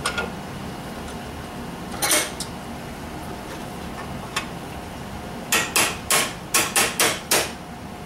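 Hammer blows on a steel punch, driving the roller pin out of a Ford truck door hinge clamped in a bench vise. One strong blow about two seconds in, a lighter one about halfway through, then a quick run of about eight blows near the end, roughly four a second.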